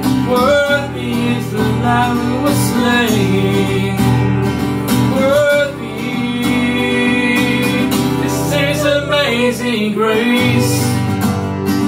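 Acoustic guitar played under a man and a woman singing a worship song together.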